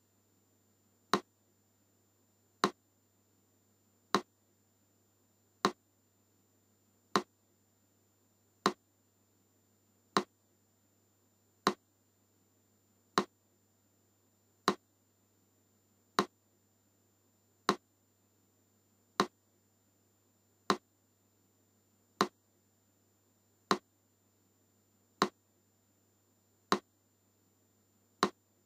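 Metronome ticking at a slow, even beat of one click every second and a half, about forty beats a minute.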